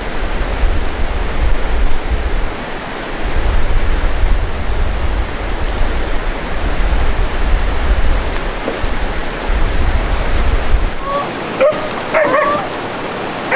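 Steady rush of stream water, with low wind buffeting on the microphone until a little before the end. In the last couple of seconds a dog whines and yips several times in short cries that rise and fall in pitch.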